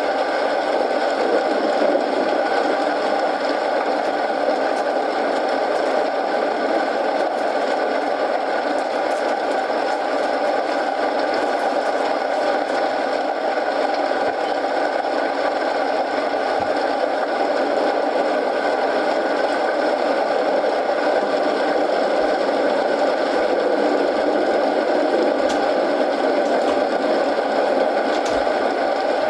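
Steady rain mixed with a crackling wood fire: a continuous even noise with faint scattered crackles.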